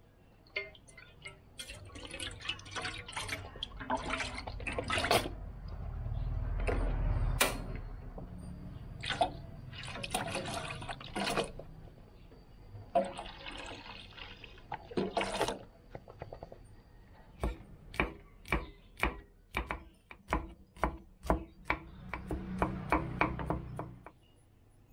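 Coconut milk pouring from a carton into a stainless steel pot, with knocks and clinks as the carton and pot are handled. In the second half, a regular run of sharp knife strikes on a wooden cutting board, about two to three a second: garlic being chopped.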